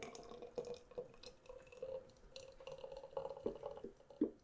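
Thick pureed hot sauce pouring and dripping from a blender jar into a glass bottle, with soft splats and a few light taps in the second half, over a faint steady hum.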